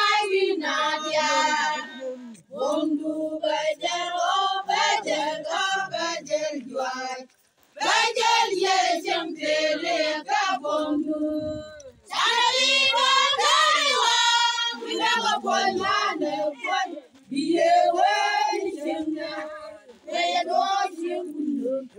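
A group of women singing a song together in high voices, in phrases broken by short pauses.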